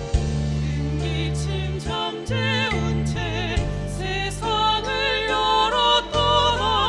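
Small vocal ensemble singing with vibrato over accompaniment of held low chords. The voices enter about a second in and grow fuller near the end.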